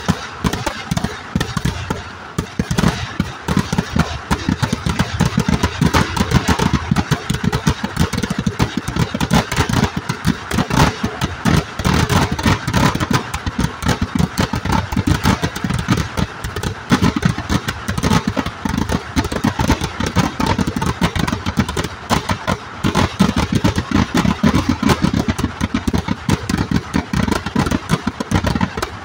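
Eeduvedi fireworks: a dense, unbroken barrage of firecracker bangs, many a second, running together into a continuous rattle.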